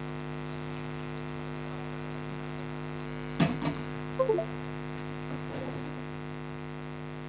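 Steady electrical mains hum with many overtones, broken by a couple of brief, faint sounds about three and a half to four seconds in.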